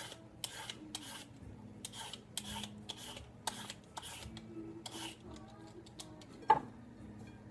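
Hand shredder scraping down a green papaya in repeated strokes, about two a second, shredding it into thin strands; the strokes die away about five seconds in. Near the end, a single sharp knock.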